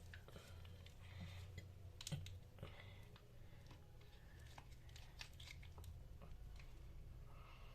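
Faint scattered clicks and light taps from tomato sauce being put on a tortilla in a frying pan, over a low steady hum.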